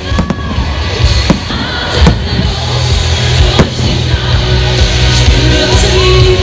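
Loud music with a heavy bass and a sung line playing during a fireworks display, with a few sharp firework bangs cutting through.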